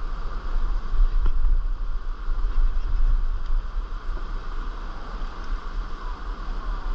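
Fast water rushing through a river riffle, a steady hiss, with wind buffeting the microphone in uneven low rumbles.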